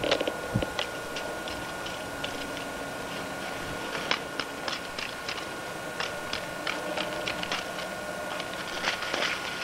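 Irregular light clicks and crackles, a few each second and bunched near the end, over a faint steady whine.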